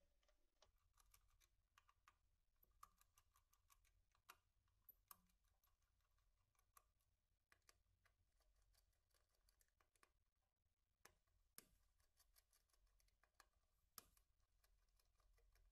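Near silence, with faint scattered clicks and light taps from gloved hands handling the wiring and terminal block of a Grundfos CUE 100 drive's dv/dt filter.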